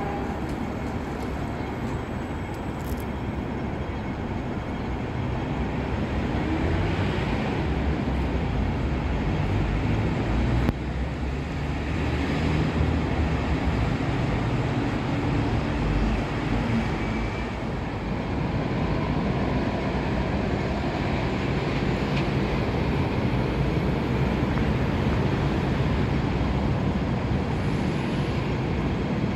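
Steady road-traffic rumble on a city street, swelling now and then as vehicles pass, with a single sharp click about eleven seconds in.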